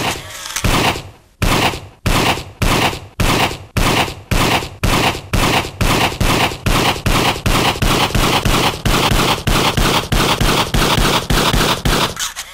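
A long, regular run of sharp bangs, each with a short ringing tail. They come about two a second at first and quicken to about three a second, then stop near the end.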